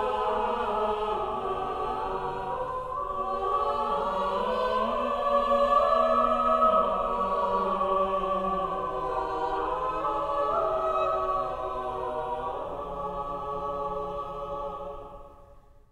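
Choral music of sustained, slowly shifting voices, fading out over the last couple of seconds.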